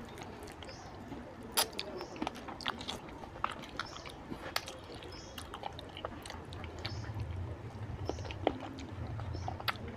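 Close-miked chewing of a mouthful of fish head curry, with frequent sharp mouth clicks. A low steady hum joins in about seven seconds in.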